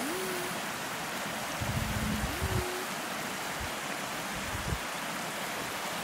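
Shallow stream water running steadily over rocks and stones. Twice a faint low tone holds and then rises in pitch, and there are a few dull low thumps.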